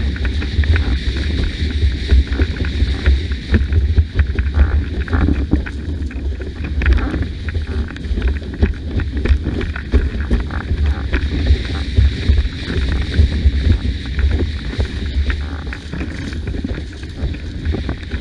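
Wind buffeting the microphone in a heavy, unbroken rumble while a windsurf board runs through the water, with constant small splashes and slaps of spray.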